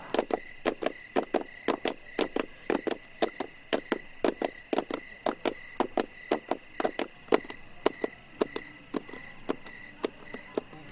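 Night insects calling: a steady high-pitched trill under a regular clicking call, about three or four clicks a second, that thins out near the end.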